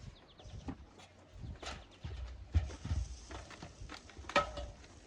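Irregular knocks and thumps, roughly one a second, like footsteps and things being handled, with a sharper click about four and a half seconds in.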